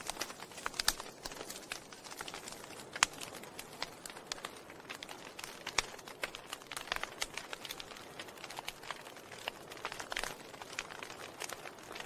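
Burning wood logs crackling in a fireplace: irregular sharp pops and snaps, several a second, over a soft hiss, with the loudest pops about one and three seconds in.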